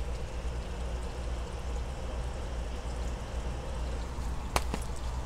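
Steady background noise: a low hum under an even hiss, with two faint clicks close together near the end.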